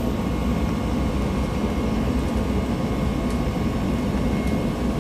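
Copeland digital scroll compressor and fans of a Liebert air-conditioning unit running with a steady mechanical hum and airy rush. The compressor is running at part capacity, unloading because the return air is only 2 degrees above setpoint.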